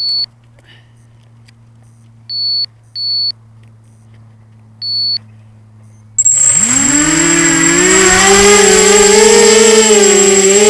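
Four short, high electronic beeps, then about six seconds in the Emax Nighthawk 250 quadcopter's brushless motors and propellers start with a sudden loud whine that rises in pitch and wavers with the throttle.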